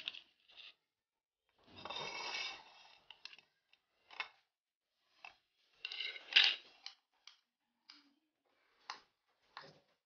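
A steel spoon scraping across a plate, then a string of light, irregular clinks and knocks as the spoon and boiled potatoes hit a steel bowl, with a louder cluster about six seconds in.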